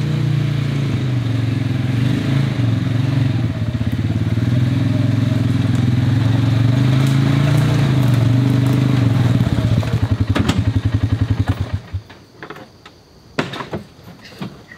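Side-by-side utility vehicle's engine running as it drives up slowly. About ten seconds in the engine is switched off, its firing slowing to separate pulses before it stops near twelve seconds. A few sharp knocks follow as the driver climbs out.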